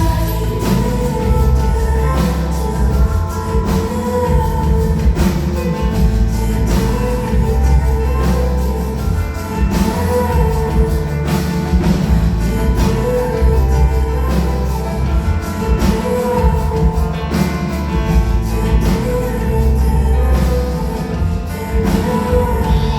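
Live band music played loud, with a steady drum beat over heavy bass and sustained keyboard notes, and singing at times.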